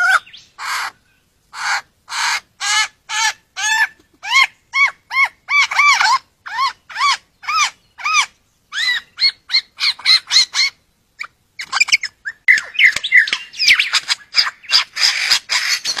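Male superb lyrebird singing during his courtship display: a long series of short, loud, arching notes, about two a second. After a brief pause about eleven seconds in, the song turns into a faster, denser jumble of calls.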